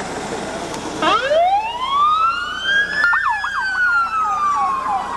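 Emergency vehicle siren: a wail rising in pitch from about a second in. About three seconds in it changes to a slowly falling tone with quick falling whoops, about three a second, over it.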